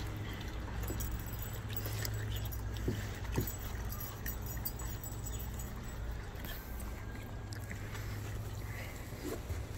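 A dog eating watermelon chunks from a plate: chewing, with a few clicks and jingles of its chain collar, over a steady low hum.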